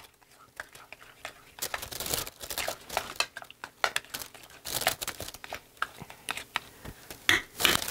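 A plastic bag crinkling in short, irregular crackles as it is handled, with a spoon scraping and stirring thick sour-cream dip in a bowl.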